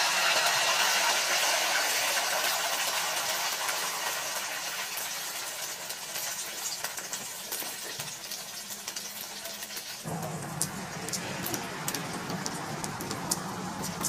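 Beaten egg with chopped spring onion frying in hot oil in a wok: a loud, even sizzle that slowly dies down. About ten seconds in it turns into a quieter, spitting sizzle with scattered sharp pops.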